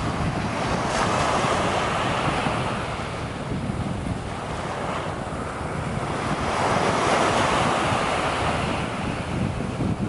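Small surf waves breaking and washing up a sandy beach, swelling twice, about a second in and again near seven seconds, with wind buffeting the microphone as a steady low rumble.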